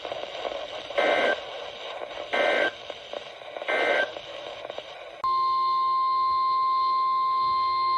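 NOAA Weather Radio emergency alert signals over radio static. Three short warbling data bursts sound about a second apart; these are the SAME end-of-message code that closes a warning. About five seconds in, the steady 1050 Hz weather-radio alert tone starts and holds.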